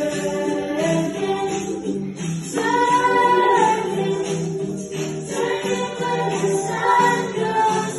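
Christian worship song with a choir singing over a steady-beat accompaniment.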